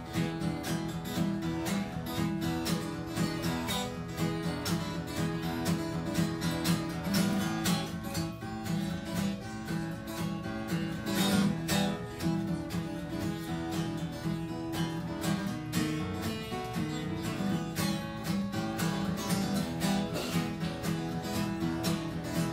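Guitar being strummed and picked in a steady rhythm.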